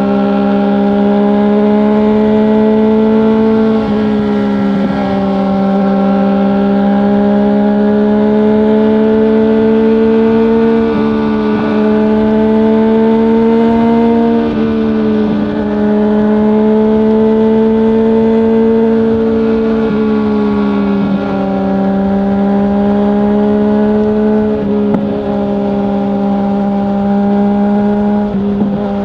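Yamaha MT-09 three-cylinder engine through an Akrapovic full-system exhaust without its dB killer, riding at a steady cruise. The pitch creeps slowly upward and dips briefly every few seconds, about six times, as the revs change.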